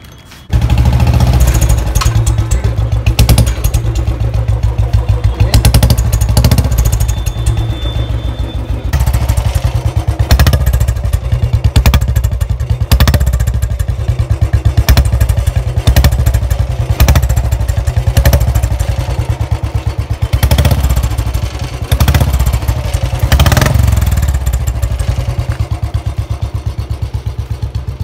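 Royal Enfield Bullet 350's single-cylinder engine running, its exhaust beating through a silencer fitted with a whistle-type baffle in the bend pipe. This is the softer whistling exhaust note of the older Bullets. The sound comes in abruptly just after the start.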